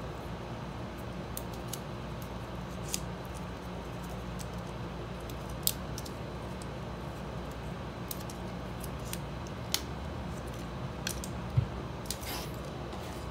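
Light clicks and ticks from handling a coiled white USB-C to Lightning cable as it is turned over and unwound, its plastic connectors tapping, with a few sharper ticks. A steady low hum runs underneath.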